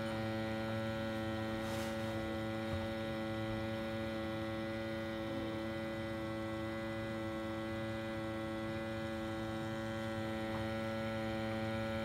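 Steady hum with several held tones from a Viessmann Vitodens 050 gas combi boiler running on low fire, together with the sampling pump of a flue gas analyser drawing gas from its flue. A faint click about two seconds in.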